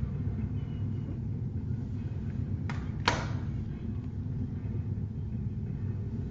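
Two sharp plastic clacks close together about three seconds in, CD jewel cases being handled, over a steady low background hum.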